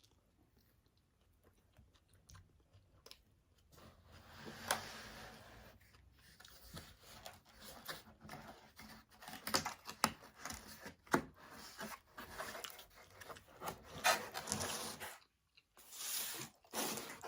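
Close-miked eating sounds: food being chewed and crunched, with tearing and handling of the food. It is quiet for the first few seconds, then the irregular clicks and rustles start about four seconds in.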